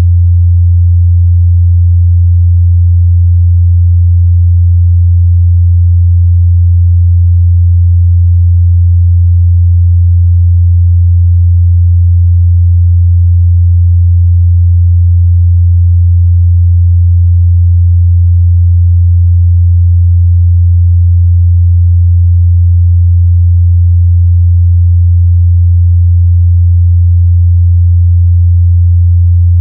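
A pure 87 Hz sine-wave test tone, a steady low hum held at constant level without change.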